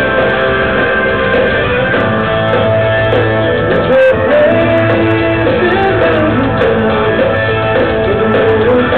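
Live rock band playing loudly: electric guitar, bass guitar and drums, with a lead line bending up and down in pitch over the steady low end.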